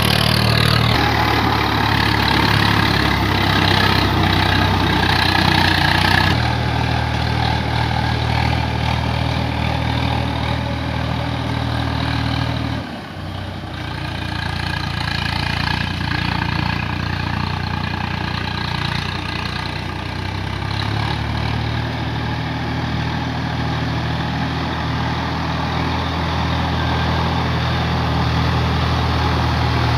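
Swaraj 855 FE tractor's three-cylinder diesel engine running steadily while it drives a rotavator tilling the field. The sound shifts abruptly about six seconds in and dips briefly about thirteen seconds in.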